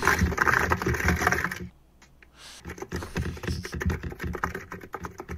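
Fast typing on a mechanical keyboard: a dense run of key clacks that breaks off for about a second near two seconds in, then starts again.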